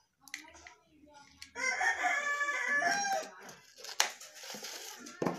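A rooster crows once, a pitched call of about a second and a half starting roughly a second and a half in. About four seconds in there is a single sharp click.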